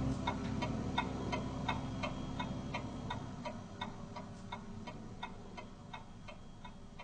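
Pendulum wall clock ticking steadily, about three ticks a second, slowly growing fainter. A low hum underneath fades away about three seconds in.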